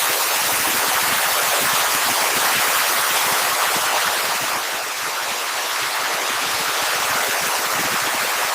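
Steady, loud hiss of static-like white noise, with no tones or rhythm in it.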